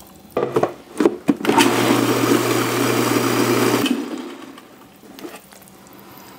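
Robot Coupe food processor pulsed in two or three short bursts, then run steadily for about two and a half seconds before winding down, blending a wet jerk marinade of onions, scotch bonnets, spices, honey and liquid.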